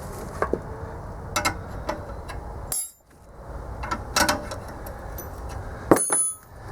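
Sharp metal knocks and clinks a second or so apart as an air compressor's cut-off steel tank is worked loose, with a ringing metallic clank about three seconds in and another near the end.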